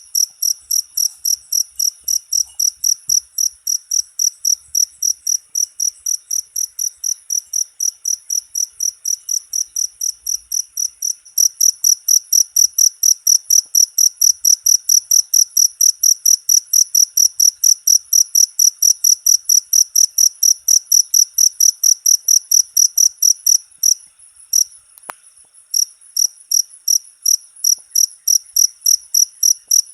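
Cricket chirping: a rapid, even train of high-pitched chirps, several a second. It gets louder a little over a third of the way through and breaks off briefly about four-fifths of the way in.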